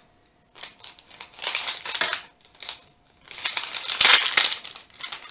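Lego minifigure blind-bag packet being handled and torn open, crinkling in two main bursts, the louder one around the middle, with small clicks between.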